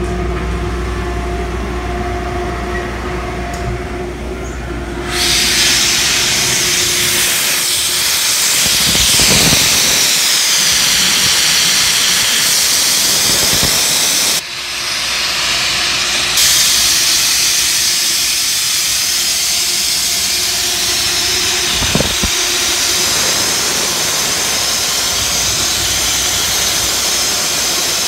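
Gardner Denver Integra 25 hp rotary screw air compressor running with a steady hum. About five seconds in, a loud hiss of compressed air rushing out starts and carries on, easing for a couple of seconds about halfway before it returns.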